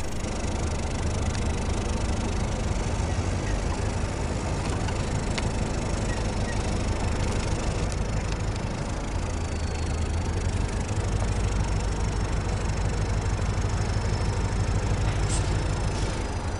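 A steady low engine rumble at idle, without change.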